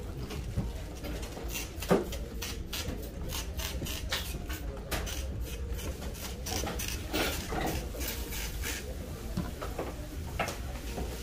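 Tint brush scraping and tapping in a plastic dye bowl and stroking hair dye through a beard close to the microphone: a run of short scratchy strokes, with a sharper tap about two seconds in.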